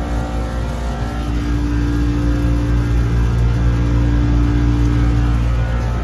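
Two-stage Carrier commercial condensing unit running on first and second stage: a loud, steady low hum from its compressors and condenser fan, with a steady higher tone standing out through the middle.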